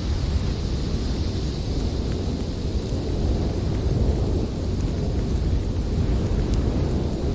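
Strong snowstorm wind blowing steadily, mostly a deep rumble with a fainter hiss above it.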